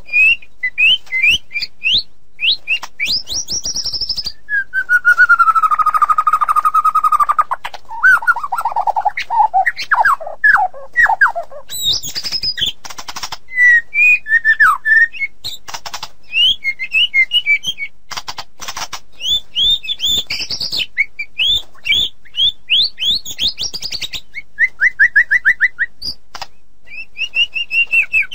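White-rumped shama (murai batu) singing a varied song of clear whistled notes, quick chirping runs and trills. A few seconds in comes a longer, lower whistle that slides down, then a run of quick down-sweeping notes.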